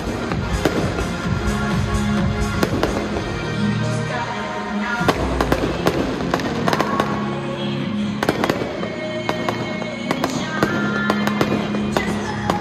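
Aerial fireworks bursting with many sharp bangs and crackles, over loud music.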